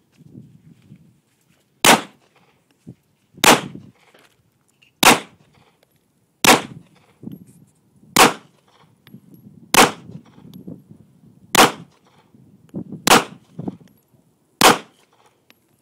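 Gunshots from a firearm at a shooting range: nine single shots fired at an even pace, about one every second and a half, each a sharp crack with a short echo.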